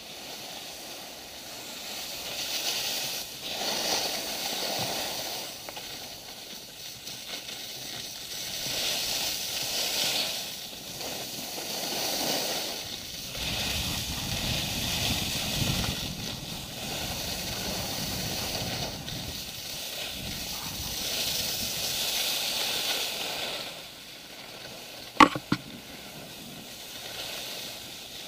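Skis scraping and carving on groomed snow: a hiss that swells and fades with each turn every couple of seconds. One sharp click near the end.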